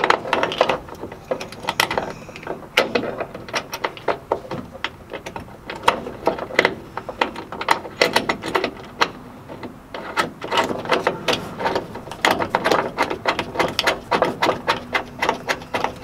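A ratchet wrench clicking in quick runs of strokes with short pauses, tightening a seat belt's shoulder anchor bolt into the car's roof rail.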